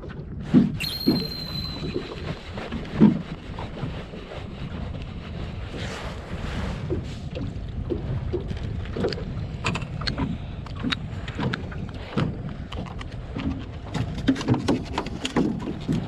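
Small boat on the water, with water slapping at the hull, wind on the microphone, and many short knocks and clicks on the boat. There are two louder thumps in the first three seconds and a brief high tone about a second in.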